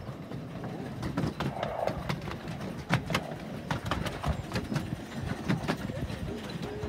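Miniature railway train running by, a low rumble with a quick, uneven run of clicks and knocks from the wheels on the track.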